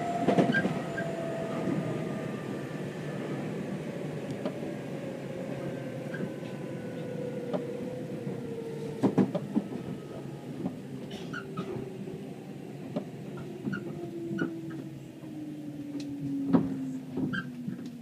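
Nankai 7100 series electric train running, heard from inside the car by the door, as it slows into a station. A whine falls steadily in pitch over the rumble, with scattered short clicks and squeaks from the car.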